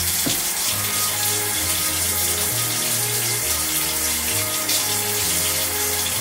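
Kitchen tap running steadily into the sink while hands are washed under it, over background music with a bass line.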